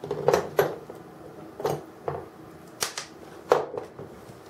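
Five or so sharp clicks and taps of small diecast-metal and plastic model-crane parts being handled and set down during disassembly.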